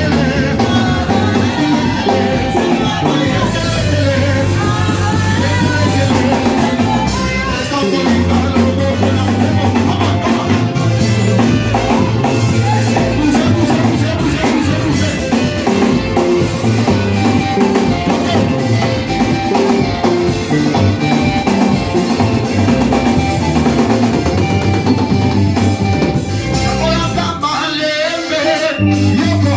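Church worship band playing with a drum kit and singing, a steady beat with a strong bass. The bass and drums drop out briefly near the end.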